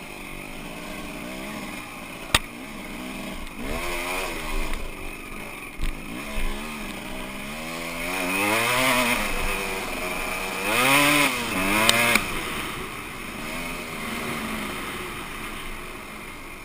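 Enduro dirt bike engine revving up and down as it is ridden, its pitch rising and falling with the throttle and loudest in the middle, easing off near the end. A few sharp knocks cut through, about two, six and twelve seconds in.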